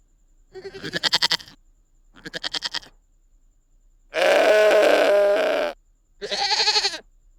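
Domestic goat bleating four times: two quavering bleats, then a long steady one, then a short one near the end.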